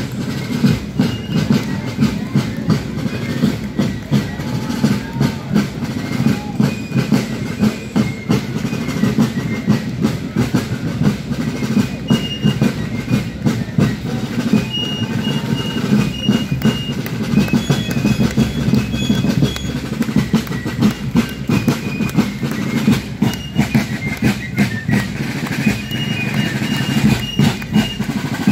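Fife and drum corps playing on the march: rope-tensioned wooden snare and bass drums beat a dense, steady rhythm, the loudest part, while fifes play a high, stepping melody above them.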